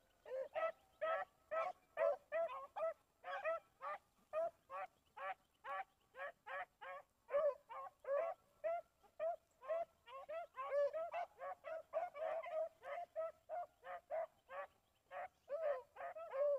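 Rabbit hounds baying on a rabbit's trail: a steady run of short, pitched bawls, about two to three a second, from more than one dog, with some calls overlapping.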